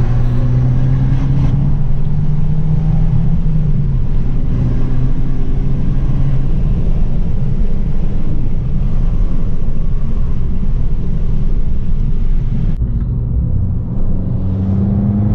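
Abarth 695 70th Anniversary's turbocharged 1.4-litre four-cylinder engine heard from inside the cabin while driving with a manual gearbox. It pulls with rising pitch, drops back at a gear change, then eases off as the car slows, and rises again near the end.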